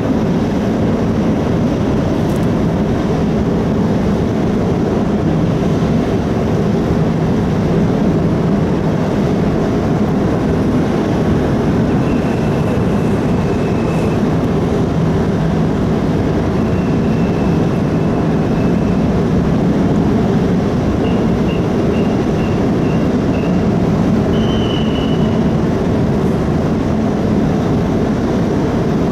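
Steady low rumble and hum of the car ferry Orange 7's engines while it is underway. A few short, high-pitched chirps come in the second half.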